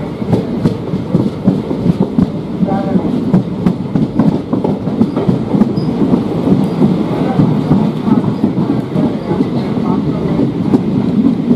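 Train running along the track: a steady rumble with wheels knocking irregularly over the rail joints throughout.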